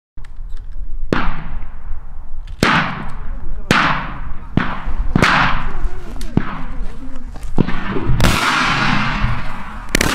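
A series of gunshots: about half a dozen sharp cracks over the first eight seconds, each ringing out with an echo, then a louder, longer burst of noise near the end.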